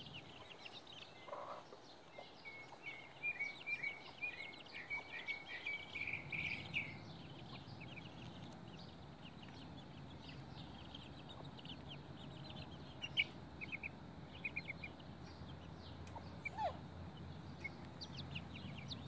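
Young chickens chirping and peeping softly: a quick run of short high notes a few seconds in, then scattered chirps later. A faint low rumble sits underneath from a few seconds in.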